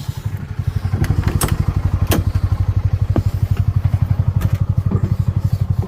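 A vehicle engine running at a low, even speed with a rapid steady throb, getting louder about a second in, with a few sharp clanks and rattles over it.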